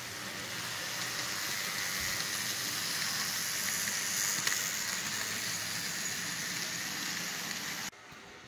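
Model freight train rolling past close by: a steady hissing rattle of its metal wheels on the track and the locomotives' motors. It drops suddenly to a quieter hiss near the end.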